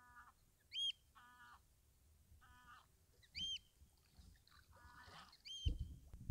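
Birds calling over the river: geese honking in short calls, and another bird giving three short high-pitched calls about two and a half seconds apart. Low thumping on the microphone comes in near the end.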